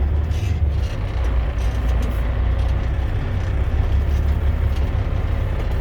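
Heavy truck's diesel engine running steadily under load, heard from inside the cab as a deep, even rumble while it crawls in low gear over muddy, rutted ground.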